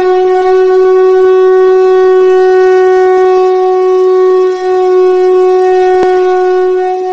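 A conch shell (shankh) blown in one long, steady held note, easing off near the end.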